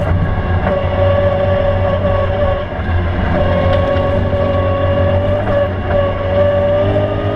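BMW E92 M3's 4.0-litre V8 running hard at high revs, heard from inside the cabin. The engine note holds steady, dips briefly about twice and climbs back.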